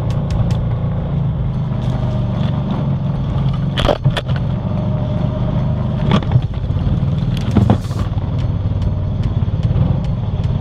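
2021 Honda Foreman Rubicon 520 ATV's single-cylinder engine running steadily as it pushes heavy snow with a front plow. Snow-covered branches scrape and brush sharply against the machine three times, about four, six and eight seconds in.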